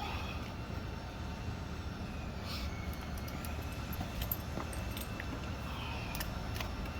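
Scattered light metallic clicks and taps from hand tools working a frame slider's Allen bolt, over a steady low background rumble.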